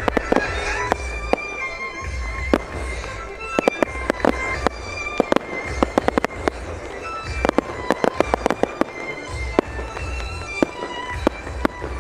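Aerial firework shells bursting in quick succession: sharp bangs in clusters with low booms underneath, over music playing throughout.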